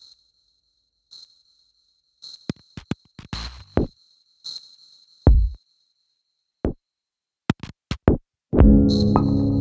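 Electronic soundtrack music: scattered clicks and a few deep drum-machine thumps over a faint, high, pulsing tone. About a second before the end, a full, loud synthesizer chord and beat come in.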